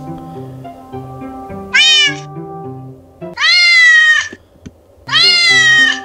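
Three recorded cat meows played from a cat-translator app on a smartphone: a short one about two seconds in, then two longer drawn-out ones. Background music with plucked notes runs under them.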